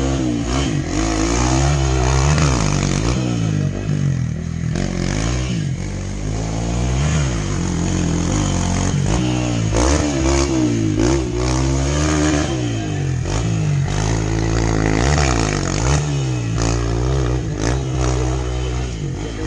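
Off-road motorcycle engine revving up and dropping back again and again, its pitch swinging every second or two as the bike is worked over rough ground.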